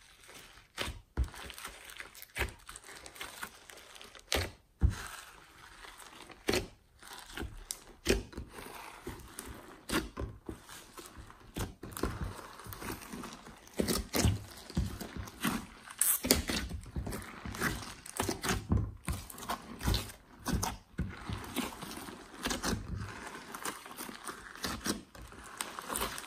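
Hands squishing and kneading fluffy slime mixed with soft clay and beads, giving sticky crackles and sharp pops. The pops are sparse at first and come much thicker from about halfway, as the slime is stretched and folded.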